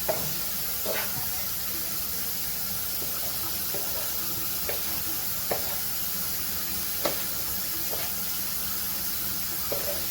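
Ground turkey sizzling in a hot frying pan, a steady hiss, with about eight short light clicks scattered through it as the meat is stirred.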